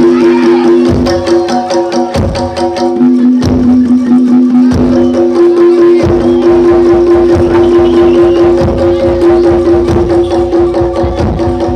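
Live jaranan (East Javanese kuda lumping) music: drum and percussion strokes over steady held melodic notes, played loud through a sound system. The drumming becomes denser about halfway through.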